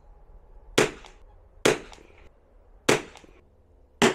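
Rifle shots: four sharp reports about a second apart, each followed by a short echo.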